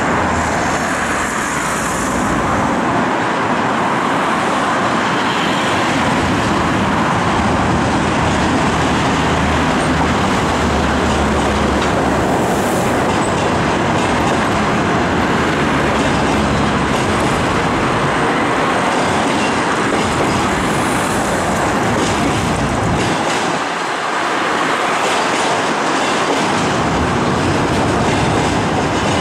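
Passenger coaches rolling across a steel truss railway bridge: a loud, steady rumble and rattle of wheels on rails.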